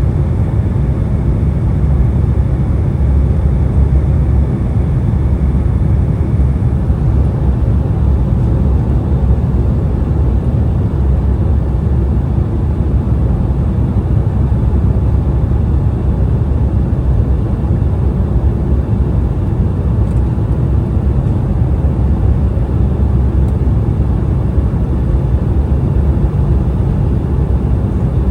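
Cabin noise inside an Embraer E175 jetliner: the steady low rumble of its GE CF34 turbofans and the airflow past the fuselage. A faint high whine stops about six seconds in.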